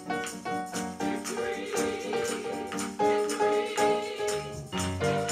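Gospel choir singing over keyboard accompaniment, with hand claps and a tambourine keeping a steady beat.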